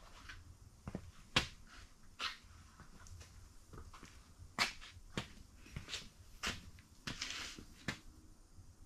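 Scattered light clicks and taps of metal being handled, as a crankshaft resting in a bare engine block is turned by hand for a runout check, with a short rustle near the end.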